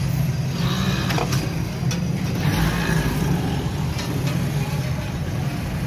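A steady low mechanical hum, like a running engine, with a few sharp clicks over it.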